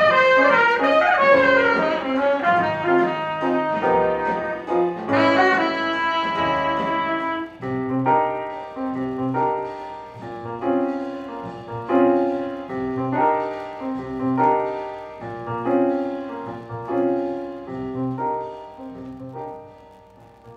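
Jazz played from a vinyl record: alto saxophone and trumpet sound the theme together, then about seven seconds in the horns drop out and piano chords repeat in an even pattern, growing quieter toward the end of the track.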